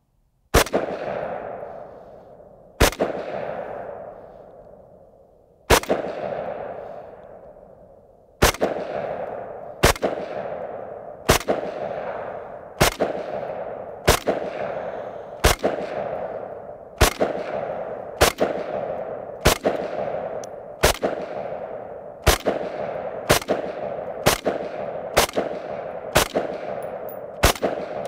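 An FN FS-2000 5.56 mm bullpup rifle fires about twenty single aimed shots, each followed by a long rolling echo. The first few come a couple of seconds apart, then the pace quickens to about one shot every second or so.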